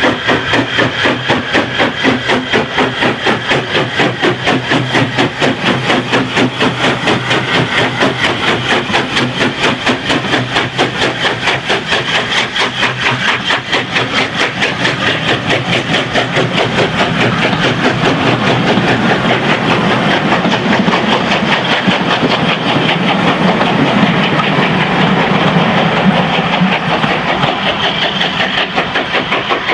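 LNWR 0-6-2T Coal Tank steam locomotive working a train past at close range, its exhaust beating steadily about three times a second. From about halfway its coaches roll by with wheels clattering over the rail joints.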